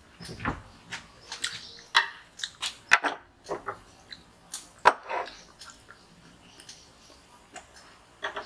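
A knife cutting a bratwurst and its bun on a cutting board: a string of irregular clicks and taps, the sharpest about 2, 3 and 5 seconds in.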